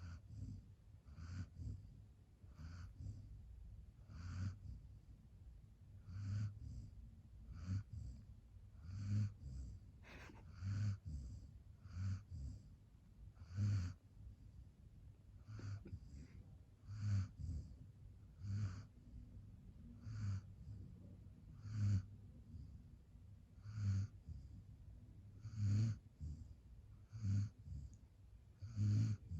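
A dog snoring: short snores every one to two seconds, often two close together.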